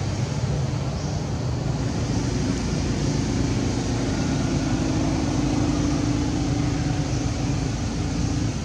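Steady low rumble of an engine, with a hum that comes in a few seconds in, swells, and fades near the end.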